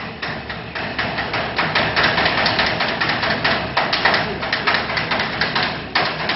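A fast, irregular run of hard knocks or taps, several a second, growing louder in the first couple of seconds, with a brief break near the end before it starts again.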